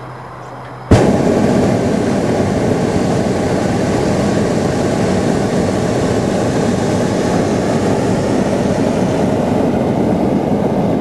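Hot-air balloon's propane burner firing: a loud, steady roar that starts suddenly about a second in and holds without a break.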